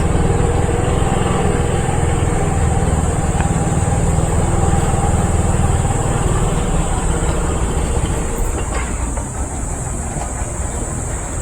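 Motorcycle running on the road, heard through an action camera: steady engine and road noise that eases slightly about eight seconds in.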